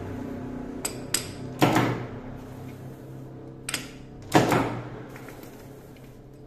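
Metal lathe with a four-jaw chuck turning slowly, a steady hum that fades away, broken by several sharp metallic knocks; the loudest comes about four and a half seconds in and rings briefly.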